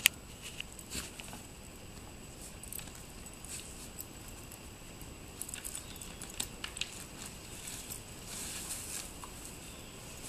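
A dog nosing, digging and gnawing at a stick in snow: irregular small crunches and snaps, with one sharp click at the very start.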